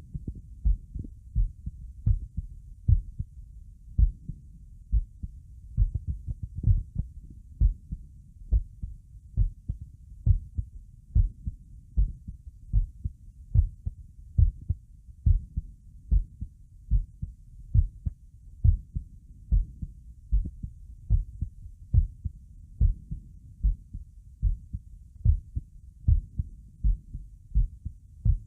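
Human heartbeat, a steady rhythm of low thumps a little over one a second, about 70 beats a minute.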